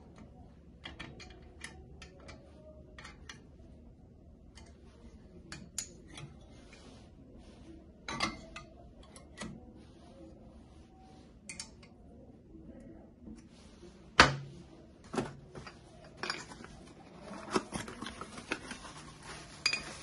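Stainless steel shaker cups and the clamp of a milk tea shaker machine being handled: scattered metallic clicks and clinks, with one sharp, loud clank about fourteen seconds in, then denser clattering and rubbing near the end.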